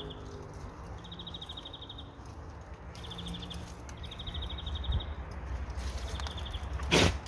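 Short high trills of rapid pulses, each about a second long, repeating every second or two over a low steady rumble, with a sharp knock near the end.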